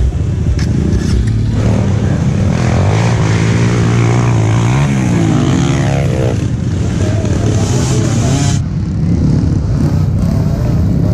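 Enduro dirt bike engines revving hard, the pitch swinging up and down several times, with a sudden change in the sound about three-quarters of the way through.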